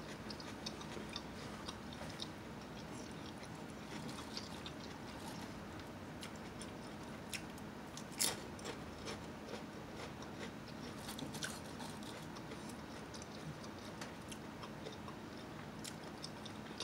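A person chewing potato chips, soft scattered crunches, with a louder crunch as a chip is bitten about eight seconds in.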